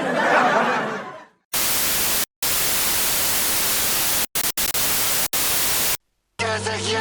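Loud, even static hiss filling the whole range, broken off by a few very short dropouts like a glitch. A short swell of noise fades out before it in the first second, and a different pitched effect comes in near the end.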